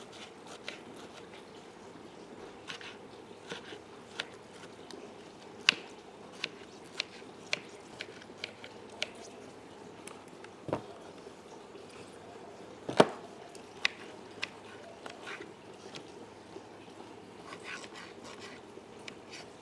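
Scattered light clicks and clinks of objects being handled, over a steady low hum, with two louder knocks about two seconds apart past the middle.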